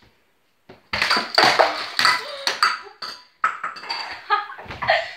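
A lamp knocked down by a kicked ball, crashing and clattering on a tiled floor, with a ringing note among the knocks. The clatter comes in two loud spells, the first starting about a second in.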